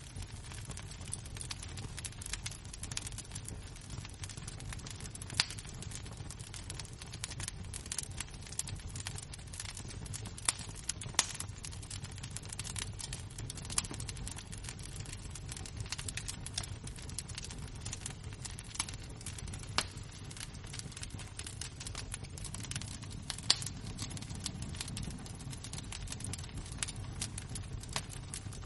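Wood fire and embers crackling: a dense stream of small crackles with a few sharper pops, over a steady low rumble.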